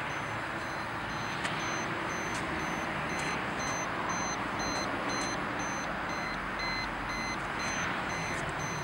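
High electronic beeping, about two to three short beeps a second, over a steady rushing noise.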